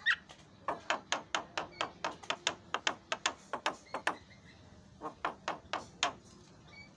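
Javan myna making a quick run of short, sharp clicking notes, each sweeping quickly downward, about five a second, then after a pause of about a second a shorter run of the same. These are its filler (isian) song notes.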